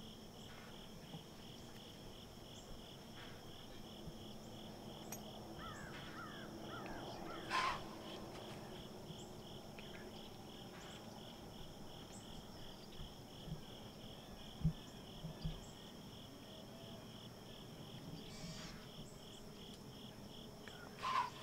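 Crickets and other insects chirping in a steady rhythm, about two or three pulses a second, over a thin constant high insect drone. A few brief, sharper sounds break in, the loudest about seven seconds in and again near the end.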